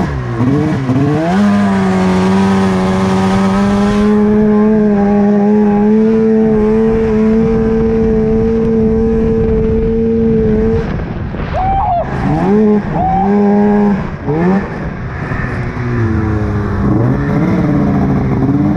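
Arctic Cat snowmobile engine under way: it revs up a second or so in and holds a steady high pitch for several seconds, then eases off and revs up and down a few times before climbing again near the end.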